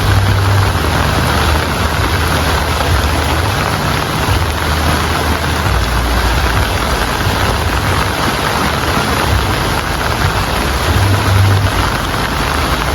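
Heavy rain falling steadily, with a low rumble underneath that swells and fades.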